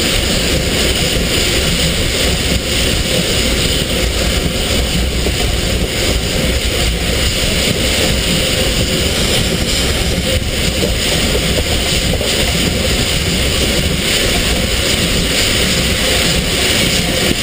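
Steam locomotive SZ 33 037, a 2-10-0, running on the line, heard up close from its side: a loud, steady rush of running gear and wheel noise, with steam hissing out low beside the wheels and wind on the microphone.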